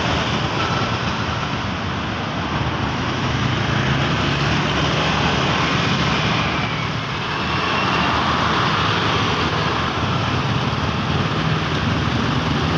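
Dense road traffic passing close by: cars, motorcycles and buses going past in a steady, loud mix of engine noise, easing slightly for a moment partway through.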